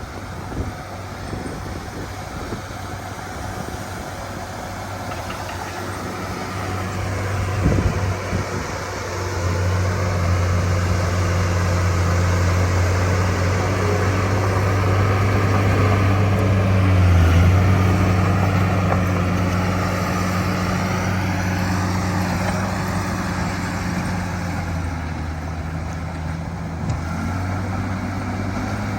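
Bulldozer's diesel engine running steadily while working, growing louder about a third of the way in and loudest a little past the middle, with a few knocks about a quarter of the way in.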